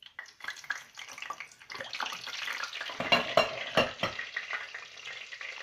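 Floured tilapia frying in hot oil: a sizzle that starts suddenly, thickens about two seconds in, and is loudest with sharp crackles and pops around three to four seconds in.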